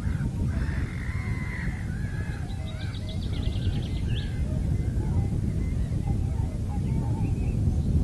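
Distant calls of several wetland birds over a steady low rumble of wind on the microphone, with a quick high rattling series of notes about three seconds in.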